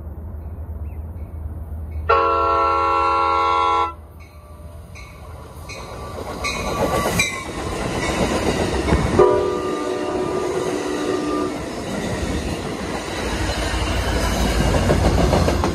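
Amtrak California San Joaquin passenger train sounding a loud, sustained multi-tone horn chord about two seconds in, then passing close by: wheels clicking rhythmically over the rail joints over a growing rumble of the cars, with a second, quieter horn chord about nine seconds in.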